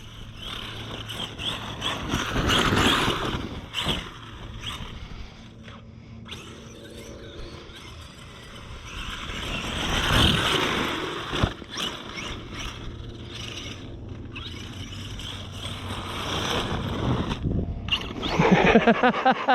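Arrma Outkast 8S RC truck with a Castle XLX2 power system, its brushless motor whining and its tires churning soft dirt as it is driven. The sound swells twice, about two seconds in and about ten seconds in, as the truck accelerates past.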